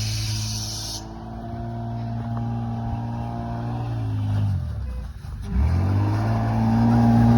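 Honda Civic's engine running steadily while driving. Its revs drop sharply about four and a half seconds in, then climb back up from about five and a half seconds. A high hiss cuts off about a second in.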